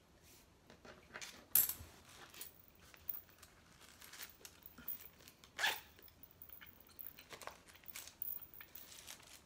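Hands handling small objects on a table: scattered short clicks and light rustles, the sharpest about a second and a half in and again past five seconds.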